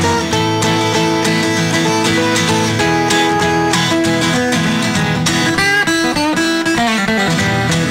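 Background music led by plucked and strummed acoustic guitar, with a steady run of notes.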